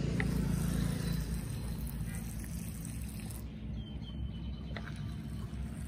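Outdoor background noise: a passing vehicle's engine hum fading out about a second in, then a steady low rumble with a couple of brief, faint high chirps.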